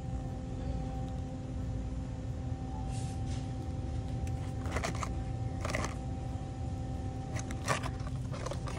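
Steady low rumble and faint even hum of a retail store's background noise picked up by a phone, with several short rustles of handling from about three seconds in.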